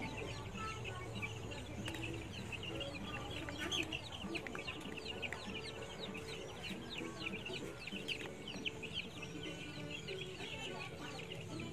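Free-range native chickens clucking, with many quick, high, falling peeps.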